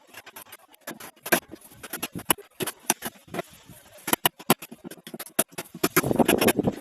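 Irregular light clicks and taps of small hard parts and tools being handled during assembly, with a denser scraping sound near the end.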